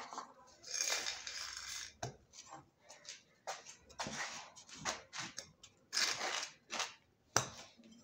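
Wood chisel cutting a hinge recess into the edge of a wooden door, driven by a wooden mallet: several short scraping cuts with a few sharp knocks among them.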